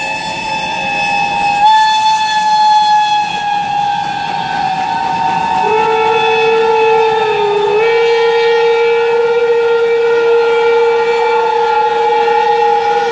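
Several steam locomotive whistles blowing together in a long, loud chord of overlapping steady tones. Individual whistles shift pitch and drop in and out, and a lower whistle joins about six seconds in.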